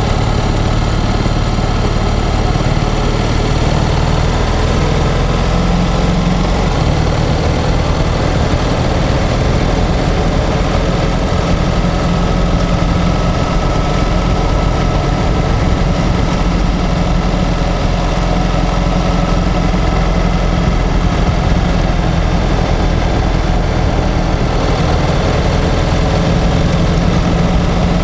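Honda X-ADV 750's parallel-twin engine and dual-clutch transmission running under way, picked up close by a microphone in the front fork tunnel, as the bike speeds up from about 33 to about 50 km/h and then holds that speed. This is the transmission sound the owner is recording to describe to a Honda dealer.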